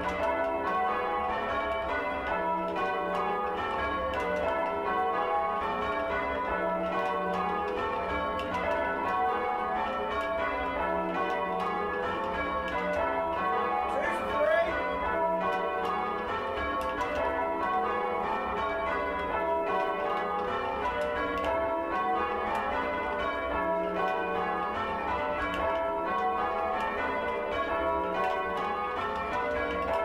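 A ring of six church bells (16 cwt, tenor in E) being change-rung, heard from the ringing chamber below: a steady, unbroken run of bell strokes in turn. The tenor bell is badly oddstruck, so its strokes fall unevenly in the rhythm.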